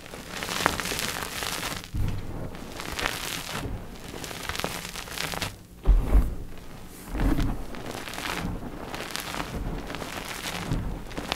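Dip-dyed gym chalk blocks being crushed, a run of crunchy, crackling bursts with a sharp thump about six seconds in.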